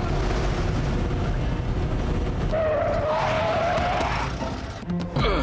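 Cartoon sound effect of a car engine running with a long squeal of a tyre spinning in place, a wavering whine that lasts from about two and a half to four and a half seconds in.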